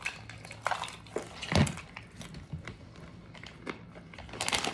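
A person chewing a mouthful of peanuts and almonds with the mouth closed, with a few scattered crunches. A crinkling rustle starts near the end.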